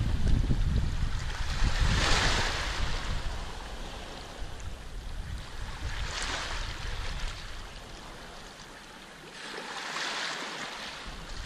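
Small waves breaking and washing up a sand-and-pebble shore, a hissing swell about every four seconds (three in all). Wind rumbles on the microphone in the first half, then drops away.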